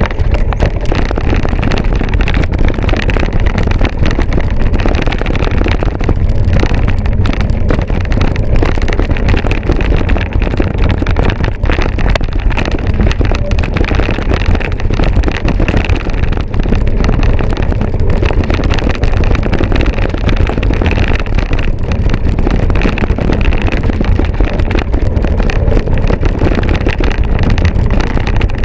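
Steady wind buffeting on a bike-mounted camera's microphone, with the continual rattle and knocks of a mountain bike ridden over rough trail.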